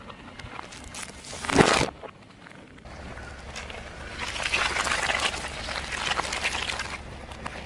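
Car tyre rolling over and crushing packaged food: a sharp crunching burst about a second and a half in, then several seconds of crackling and crinkling of plastic and foil packaging over a low rumble.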